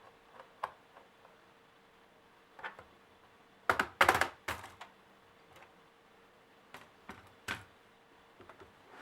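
Scattered clicks and knocks of a laptop's plastic case and parts being handled during disassembly, with a loud cluster of clatter about four seconds in and a single sharp click near the end.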